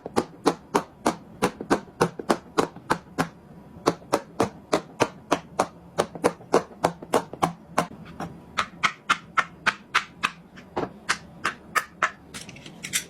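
Silicone pop-it fidget toy bubbles being pressed through one after another in a fast, steady run of sharp pops, about four a second.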